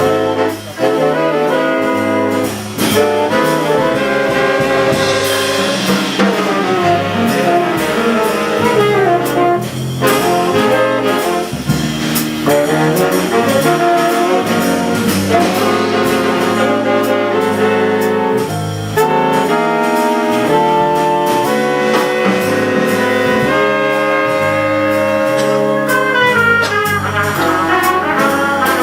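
Big-band jazz ensemble playing a ballad: saxophone and brass sections (trumpets, trombones) in full harmony over a rhythm section with cymbals.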